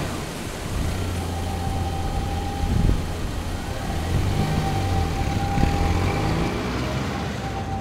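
Steady road and engine noise inside a Toyota car's cabin while driving at highway speed.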